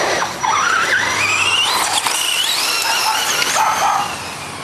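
Old Losi RC truck's motor whining as it is throttled through slides, the pitch climbing and wavering over the first three seconds, with a steady hiss of tyres scrubbing on concrete.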